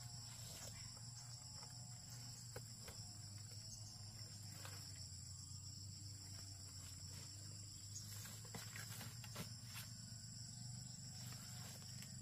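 Faint, steady chirring of crickets, a high insect chorus that holds level throughout, with a low hum underneath and a few light clicks.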